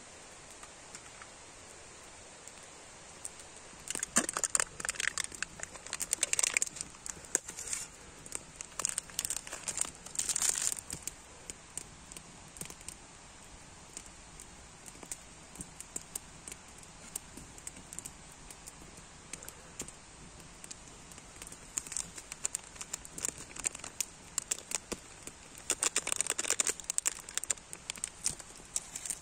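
Foil and plastic packaging of an instant noodle cup crinkling and tearing as the seasoning sachets are opened and emptied. It comes in three spells of crackling, with a lull in the middle.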